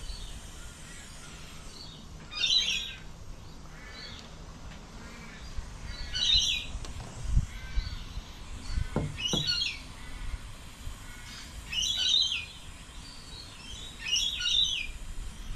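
A bird calling repeatedly, one short high call about every three seconds, five times. A couple of low knocks come about halfway through.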